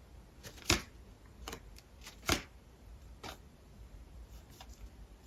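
Tarot cards being handled and laid down on a table: a few short, soft card taps and slaps, the two clearest about a second and a half apart.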